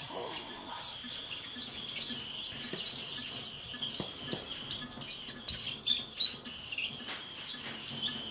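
Ultrasonic dental scaler working on a dog's teeth to remove tartar: a steady high whine with irregular high squeaks and chirps as the tip scrapes along the teeth, with scattered small clicks.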